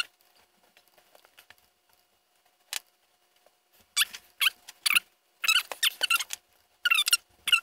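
A small animal squeaking in short, high-pitched bursts: one squeak about three seconds in, then a quick run of squeaks through the last few seconds.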